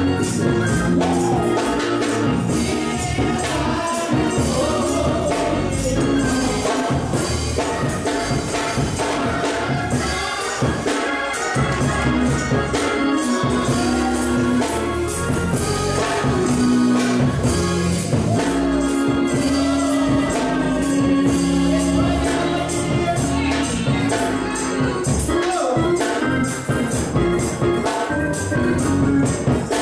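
Live gospel music: a woman singing into a microphone over a drum kit and a steady shaken tambourine.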